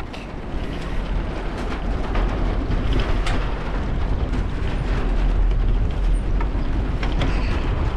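Wind rumbling on the microphone of a moving bicycle, with irregular clicks and rattles as its tyres roll over the planks of a wooden boardwalk.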